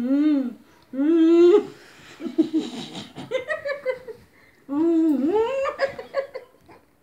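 Woman's voice in long, wavering held notes, broken by bursts of laughter in the middle.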